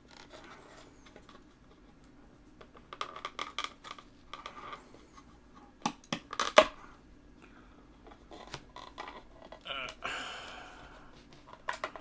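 Hard drive being worked free by hand from its plastic external enclosure, where rubber mounts hold it: scattered plastic clicks and scrapes, with a sharp snap about six and a half seconds in.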